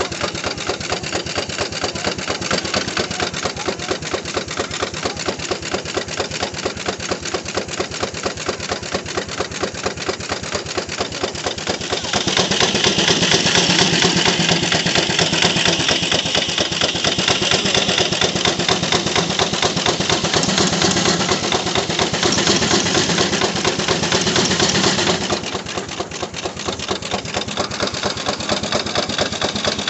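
Gaar-Scott steam traction engine running a sawmill by belt, its exhaust beating in a fast even rhythm. From about twelve seconds in the sound grows louder and higher as the circular saw works through a log, easing back about a dozen seconds later.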